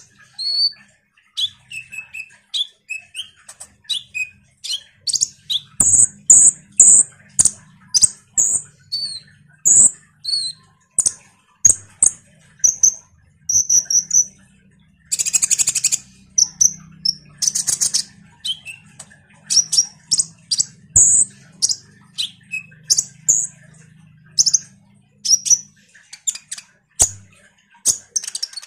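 A kolibri ninja (konin) sunbird singing non-stop: a rapid string of high, short chirps and whistled notes, with a couple of dense buzzy trills in the middle.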